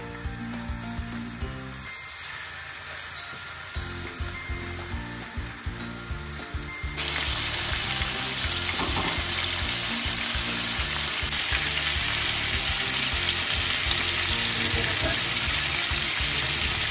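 Marinated chicken legs sizzling in hot oil on a flat iron tawa. The sizzle jumps suddenly louder about seven seconds in, then holds steady.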